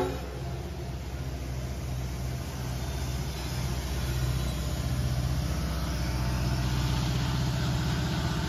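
Diesel locomotive engines giving a low, steady rumble that slowly grows louder as the train comes closer.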